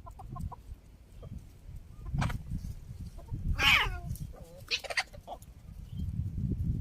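Hen clucking: a few soft clucks at first, then a louder, longer squawking call with falling pitch a little past halfway, and a couple more clucks after it. A low rumble runs underneath toward the end.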